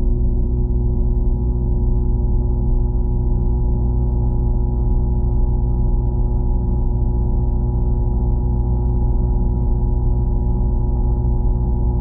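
A steady, muffled low hum with several unchanging tones in it, heard underwater, with faint scattered ticks above it.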